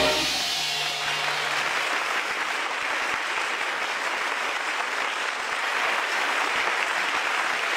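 Audience applause, steady and even, as the last low note of an orchestral music sting with timpani dies away in the first couple of seconds.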